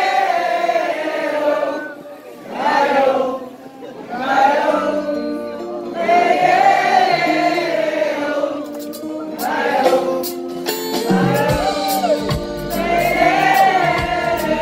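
Live music: many voices singing a wordless melody together in swelling phrases, like an audience singing along. About halfway through, bass notes and sharp percussive strokes from the band come in under the singing.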